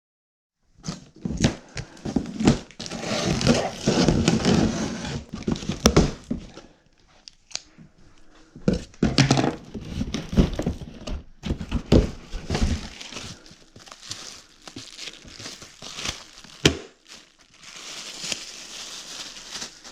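Packaging being handled by hand: irregular crinkling, rustling and tearing, with a few sharp knocks.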